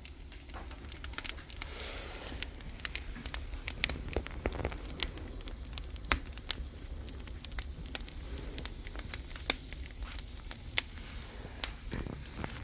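Oak firewood burning in a traditional Korean agungi firebox, crackling with irregular sharp pops throughout.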